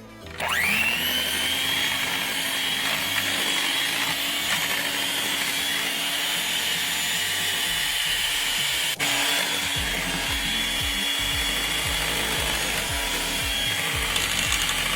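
Electric mixer starting up, its motor quickly rising to a steady high whine as it beats cupcake batter. It cuts out for a split second about two-thirds of the way through, then runs on steadily.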